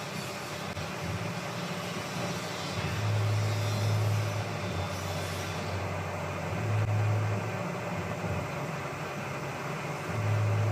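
CNC lathe running while machining a hydraulic piston cap, a steady mechanical noise under a low hum that swells louder three times.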